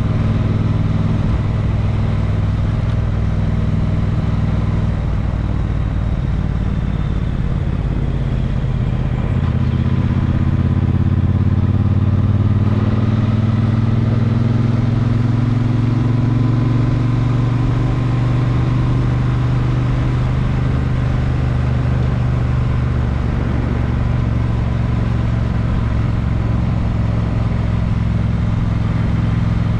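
A road vehicle's engine running steadily on the move. About nine seconds in the engine note changes, then climbs slowly in pitch over several seconds before settling.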